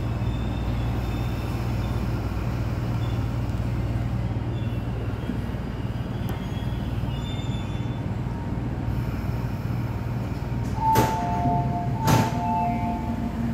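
MTR East Rail Line mid-life refurbished (MLR) electric train running on the track, heard from on board: a steady rumble with a low hum that fades out about a third of the way through. Near the end come two sharp knocks about a second apart and a pair of steady two-note tones.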